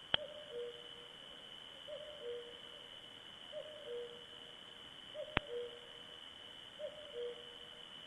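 An owl hooting: a pair of low notes, the second slightly lower and longer, repeated about every second and a half.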